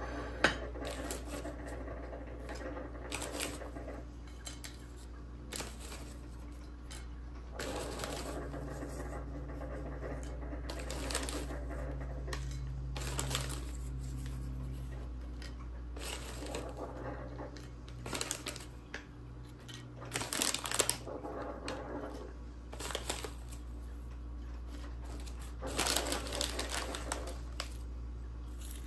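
Crisp chips set down one by one on a ceramic plate, making light clicks and clatters, with a chip bag crinkling now and then. The loudest bursts of crinkling come about two-thirds of the way in and again near the end.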